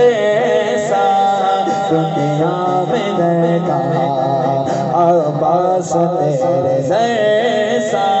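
A man singing a devotional Islamic song (manqabat) in praise of Abbas into a microphone, with long held notes that bend and waver in pitch.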